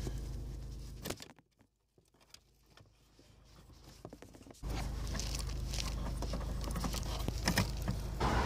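Hands working the plastic wiring connector of a car's rear light: light clicks and rustles of plastic and cable, broken by about three seconds of near silence, with a steady low hum under the rest.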